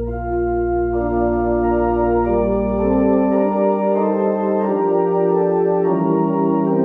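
Church organ playing slow held chords, the chords changing about every second; a deep sustained bass note drops out about three seconds in.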